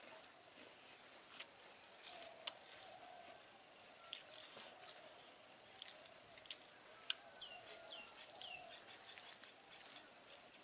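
Quiet eating sounds: fingers mixing rice on a banana leaf, and chewing, heard as scattered soft clicks and wet smacks.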